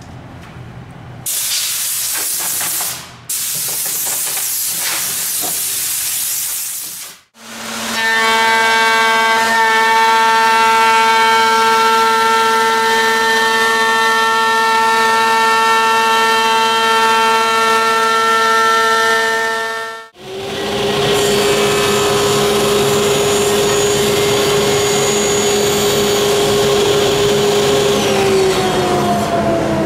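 Workshop power tools, one after another: first a loud even hiss for about six seconds, then an electric router in a router table running with a steady whine as a small walnut piece is fed past the bit, then a table saw running and, near the end, winding down with its pitch falling as the motor is switched off.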